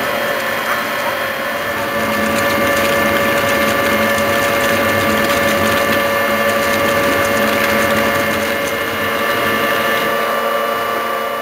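Hwacheon VT 4500 CNC vertical turning center cutting a large metal ring under a coolant jet. It makes a steady machining whine of several tones over a hiss.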